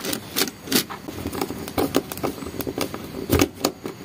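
Irregular small clicks and scrapes of a screwdriver working the terminal screws of a two-pole miniature circuit breaker, with wires and the plastic breaker body being handled; a louder knock comes about three and a half seconds in.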